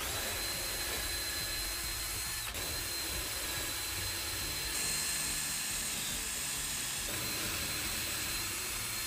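Cordless drill mounted in a portable drill guide, running steadily as it bores a hole into a wooden workbench top for a threaded insert. Its high motor whine dips briefly about three times.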